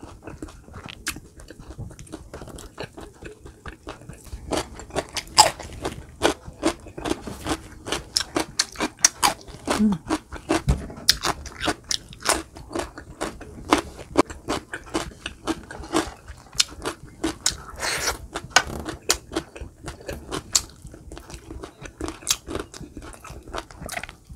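Close-miked mouth sounds of eating roasted chicken: biting into crisp, slightly charred skin and chewing, with many irregular wet clicks and crunches.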